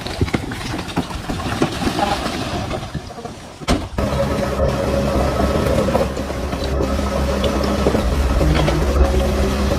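DH17C3 crawler bulldozer at work: clattering knocks over a rough low engine rumble, a sharp bang a little under four seconds in, then the diesel engine running steadily and louder with a deep hum.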